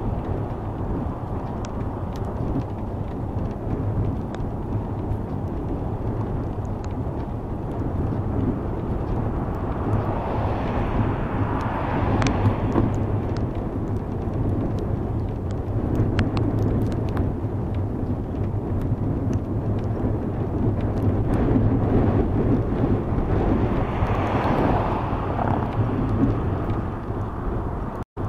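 Wind rushing over a dashcam microphone wrapped in a plastic bag during a slow, rainy ride. The noise swells louder twice, about ten seconds in and near the end, with scattered small ticks through it and a brief cut-out at the very end.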